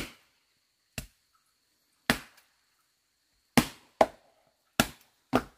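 Flat wooden boards striking and packing down earth by hand, about seven separate blows at uneven intervals, the strikes of two people working side by side.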